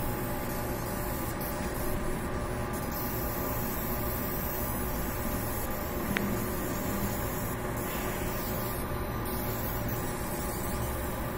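Steady hum and whir of a laser marking machine running, with a single sharp click about six seconds in.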